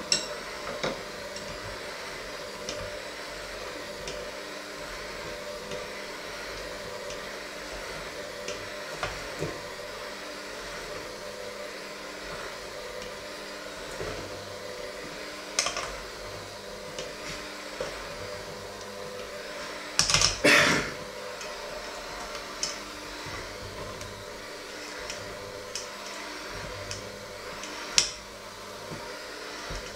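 Handheld electric mixer running steadily, its beaters working a crumbly mixture in a stainless steel bowl. Now and then the beaters knock against the metal bowl; the loudest is a short clatter about twenty seconds in, with another sharp knock near the end.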